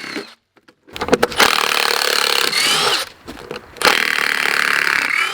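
Cordless drill backing screws out of wooden 2x4 concrete forms: two runs of the motor, with its whine rising in pitch near the end of each.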